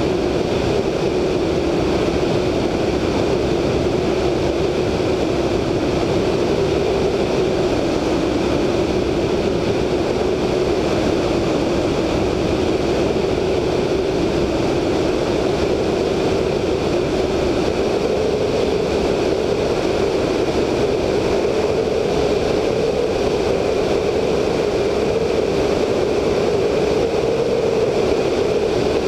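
Siemens-Halske Sh 14A seven-cylinder radial engine of a VL Viima II biplane running steadily in flight, with wind rushing past the wingtip-mounted microphone. It is a constant drone that rises slightly in pitch in the second half.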